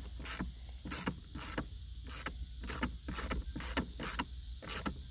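Ratchet wrench with a 10 mm deep socket clicking steadily as the shifter's mounting nuts are loosened, about two to three sharp clicks a second.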